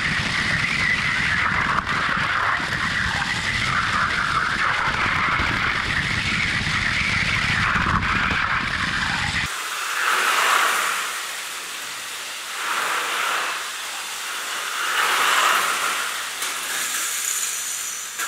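3D-printed toy train running at high speed on its banked plastic track. For the first half it is heard from a camera riding on the train, a dense rush with a heavy rumble. Then, heard from beside the track, its whine swells and fades each time it passes, about every two and a half seconds.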